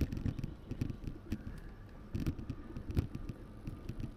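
Wind buffeting the built-in microphone of a DJI Action 4 camera during an e-bike ride, a gusty low rumble with scattered knocks and bumps from the ride.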